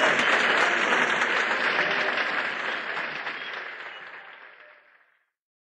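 Audience applause, fading out to silence about five seconds in.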